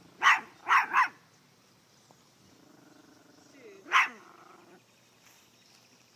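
Small dog barking sharply: three quick barks in the first second, then one more about four seconds in, with faint growling between.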